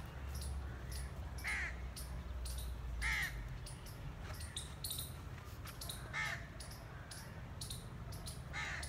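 A crow cawing: four single calls spaced about one and a half to three seconds apart, with brief high chirps around them.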